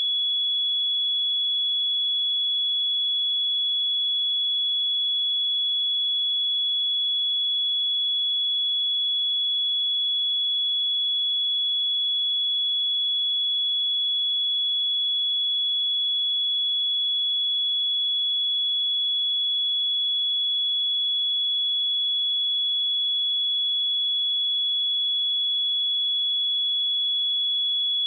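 A pure 3382 Hz sine-wave test tone, held steady at one high pitch.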